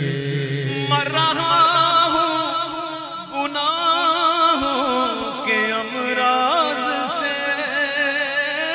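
Male voice singing an Urdu naat, drawing out long, wavering, ornamented notes with no clear words, over a steady low drone.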